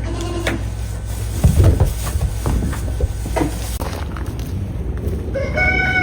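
Scattered knocks and scuffs over a steady low rumble, then about five and a half seconds in a young goat starts a long, steady bleat.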